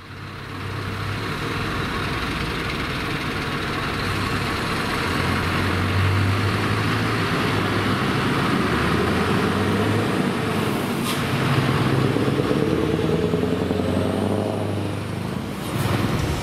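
Scania V8 truck with an open-pipe exhaust pulling away and driving past, its engine note rising as it accelerates about twelve seconds in. The sound fades in at the start.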